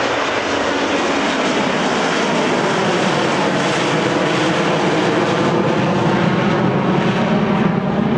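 Loud jet roar from a Boeing 727-200's three Pratt & Whitney JT8D turbofans as the airliner flies past, growing slightly louder.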